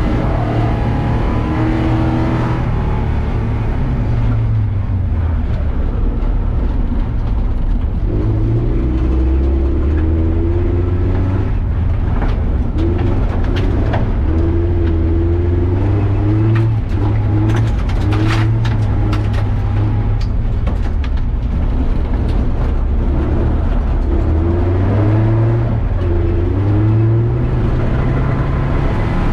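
A Porsche 924's four-cylinder engine, heard from inside the cabin, revving up and easing off over and over as the car is driven hard around a gravel rallycross course. A run of sharp ticks and rattles comes through the middle of the run.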